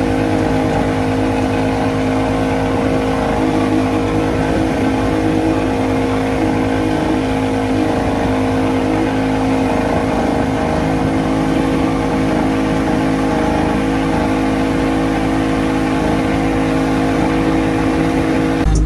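Outboard motor running at steady high throttle, driving the boat along at speed; its pitch holds even throughout.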